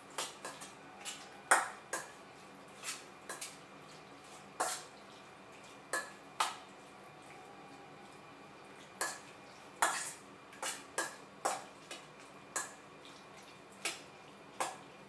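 Metal spoon clinking against a stainless steel bowl while stirring pieces of soya chaap in garlic oil: irregular sharp clinks, with a pause of a couple of seconds midway.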